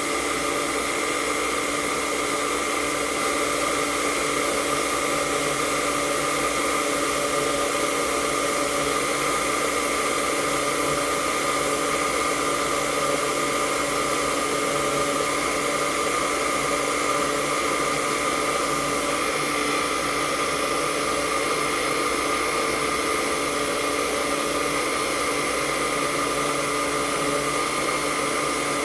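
Countertop blender motor running steadily at full speed, whirring with a constant hum as it blends a fruit-and-ice smoothie.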